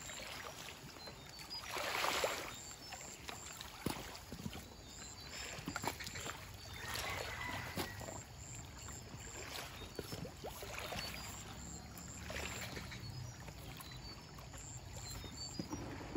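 Water splashing and streaming off a wet net trap as it is hauled out of the river and piled onto a bamboo raft, with scattered knocks of the gear on the raft. The loudest rush of splashing comes about two seconds in, with smaller ones near the middle and later on.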